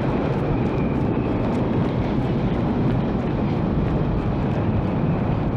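Tornado wind roaring steadily and loudly, with no let-up: the storm sound of a film tornado.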